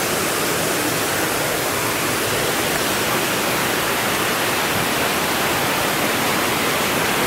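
The Dzhur-Dzhur waterfall: a steady, even rush of falling water.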